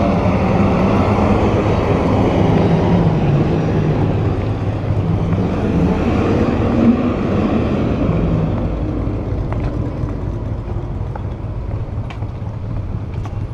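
Street traffic: a motor vehicle engine running close by with a steady low rumble, slowly fading over the second half.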